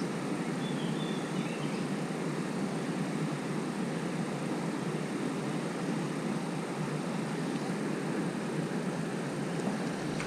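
Steady rush of water flowing down a lake spillway.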